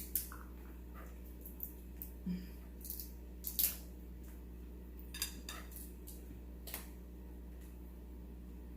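Seafood shells being cracked and picked apart by hand while eating: a quick, irregular series of sharp crackles and clicks that stops about seven seconds in.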